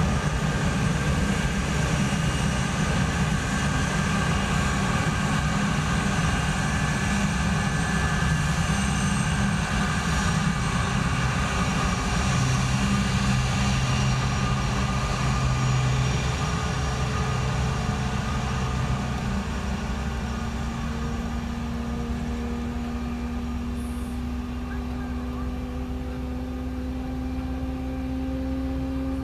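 Boeing 757-200 freighter's jet engines at taxi power, a steady whine and rumble that eases a little about two-thirds of the way through as the aircraft moves away. In the last third a low tone slowly rises in pitch.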